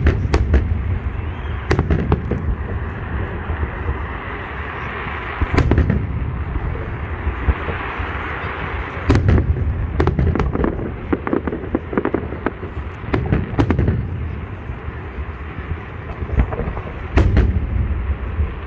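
Fireworks salute: aerial shells bursting in heavy, deep booms every few seconds, with lighter sharp pops and crackles between them.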